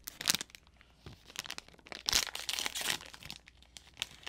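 Wrapper of an individually packaged soft chocolate chip cookie being pulled open and crinkled in the hands, with a dense burst of crinkling about two seconds in.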